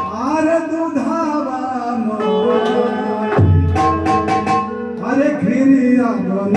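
Live devotional bhajan music: a singer draws out long, wavering lines for about the first three seconds and again near the end, over dholak drum strokes and long held instrument notes.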